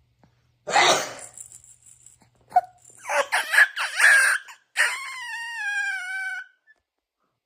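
A teenage boy's loud sneeze about a second in, which startles a baby into whimpering and then a long wailing cry that sags slightly in pitch near the end.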